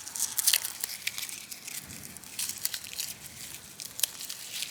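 Dry plant material being crushed and torn apart by hand into fine tinder, giving irregular sharp crackles and rustles.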